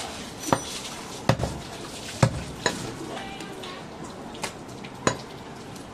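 Butcher's cleaver chopping goat meat on a wooden log chopping block: a handful of sharp, irregularly spaced knocks, the loudest in the first two and a half seconds.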